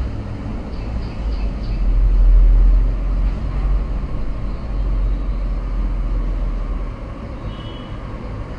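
Busy road traffic: vehicle engines running with a steady noise and a low rumble that swells for a few seconds, loudest a couple of seconds in, then eases off.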